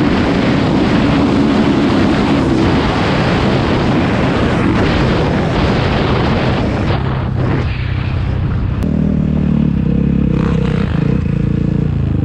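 Dirt bike engine running hard under a loud rushing hiss; about eight seconds in the hiss drops away and the engine settles into a steadier tone.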